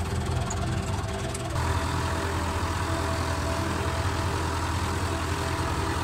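David Brown 990 tractor's four-cylinder diesel engine running steadily. About a second and a half in the sound changes abruptly and gets brighter, as the tractor is driven along a gravel forest track.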